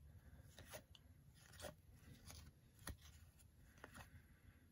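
Faint soft flicks, about one a second, as Topps baseball cards are slid one at a time off a hand-held stack onto another.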